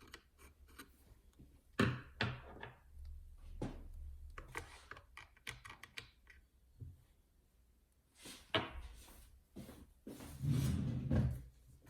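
Scattered clicks, knocks and thuds of a 1970s Cub 4 sewing machine being handled while a screwdriver works at the screws on its underside. There is a sharp thud about two seconds in and a heavier, longer thump near the end.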